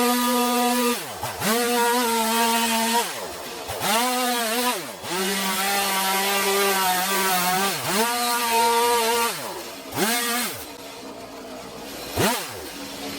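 Stihl MS 180 C two-stroke chainsaw cutting wood, held at full throttle in bursts. The throttle is let off several times, the engine speed dropping and climbing straight back each time. Near the end it runs lower and quieter, with one short blip.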